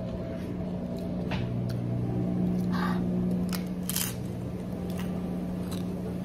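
Crunchy fried corn tostada being bitten and chewed, with short crackles and the loudest crunch about four seconds in. A steady low hum runs underneath.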